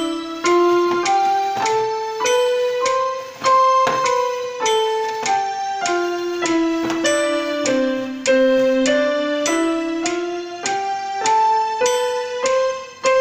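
Portable electronic keyboard on a piano voice, played with both hands: an even, unhurried run of notes, a new one about every half second, a melody above a lower line that moves step by step.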